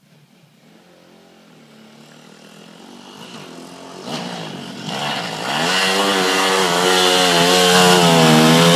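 Dirt bike engine approaching, faint at first and growing loud, its revs rising and falling with the throttle. In the last few seconds, snow thrown by the rear tyre adds a hiss.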